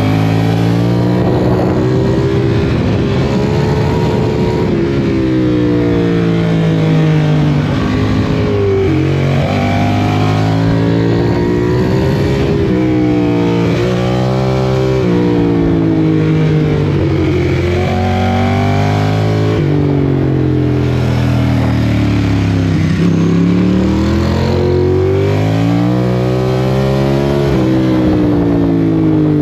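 Vehicle engine revved up and down over and over, its exhaust rumbling and its pitch rising and falling every few seconds.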